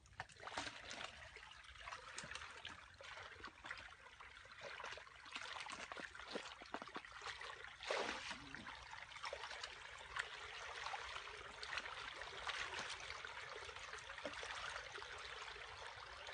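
Shallow muddy pond water trickling and splashing as hands and a plastic basket are worked through it, with many small splashes and a louder splash about halfway through.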